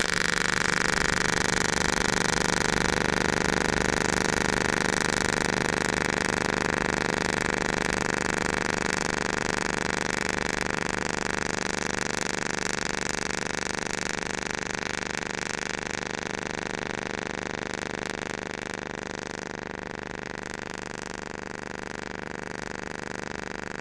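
AC TIG welding arc at 200 amps on aluminium, burning from a 3.2 mm green (pure) tungsten electrode with a balled tip. It makes a steady buzz with a hiss, the welder's AC frequency set to 50 Hz.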